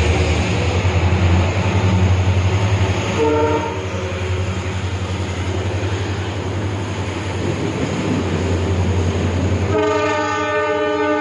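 WDP-4D diesel-electric locomotive under power, its EMD two-stroke engine giving a heavy, steady rumble. A short horn blast sounds about three seconds in. Near the end the horn starts again and is held as a long multi-tone blast.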